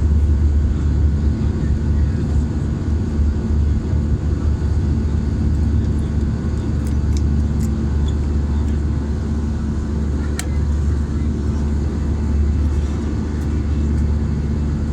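Airplane engine droning steadily overhead, a constant low rumble with a faint steady hum, and a few faint clicks about 7 and 10 seconds in.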